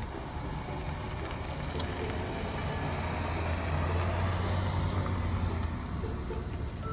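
A Honda N-BOX kei car pulling away and driving past close by: its small 660 cc three-cylinder engine and tyres hum, growing loudest about four seconds in, then easing off as it leaves.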